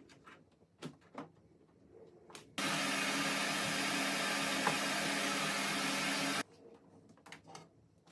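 A small electric motor blowing air, a loud steady rushing hiss with a low hum underneath. It switches on abruptly about two and a half seconds in and cuts off just as suddenly about four seconds later. A few light clicks come before and after it.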